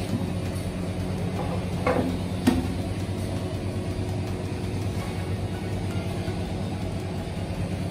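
Two light knocks about two seconds in as the planetary mixer's top cover is set onto the mixer head, over a steady low hum.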